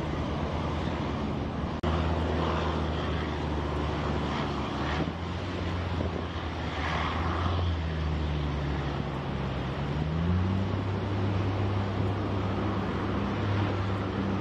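Amphibious combat vehicle's engine droning steadily as it drives into the surf, over the rush of waves and spray; the engine note rises about ten seconds in.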